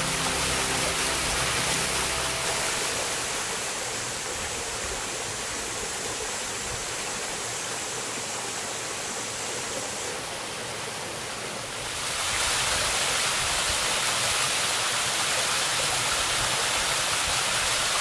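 Small mountain waterfall and stream rushing over rock: a steady watery noise that gets louder and brighter about twelve seconds in. Background music fades out in the first couple of seconds.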